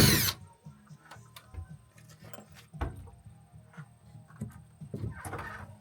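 A power drill whirs and stops right at the start, followed by scattered light knocks and clicks of work on wood.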